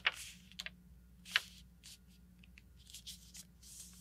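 A sheet of printer paper being slid, folded and creased by hand on a cutting mat: soft rustles and a few short, sharp crinkles, the loudest about a second and a half in, then a longer rustle near the end as the fold is pressed flat.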